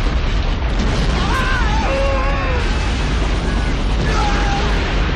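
Film sound of a lava fountain erupting: a loud, steady deep rumble, with people screaming over it twice.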